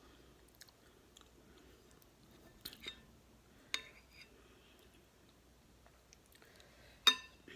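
Close-up chewing and mouth sounds of someone eating beef stew and cornbread. A few sharp clicks of a utensil on a dish are heard, two of them ringing briefly, the loudest near the end.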